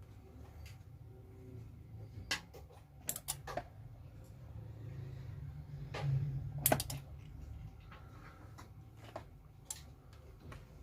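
Scattered light clicks and taps from handling a stabilizer's circuit board, over a low steady hum that swells for a couple of seconds past the middle; the sharpest click comes just before the hum fades.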